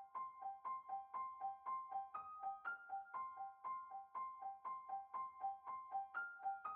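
Background music: a piano playing a quick, even two-note figure of short notes, about four a second, with the upper note moving up now and then.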